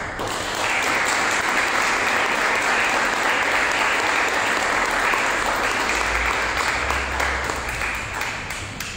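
An audience and the panellists applauding: a steady round of clapping that tapers off near the end.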